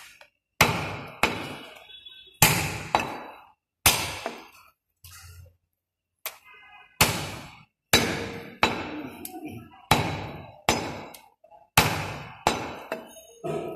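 Heavy butcher's cleaver chopping goat leg meat and bone on a wooden chopping block: a dozen or more sharp blows in quick succession, with a short pause near the middle.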